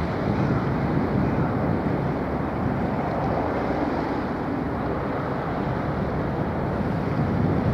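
Steady low rumble of a passing 144 m container ship, mixed with wind buffeting the microphone.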